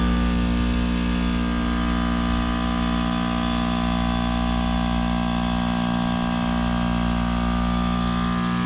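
Trane Odyssey commercial heat pump's outdoor unit running during its defrost cycle: a steady mechanical hum with several held tones.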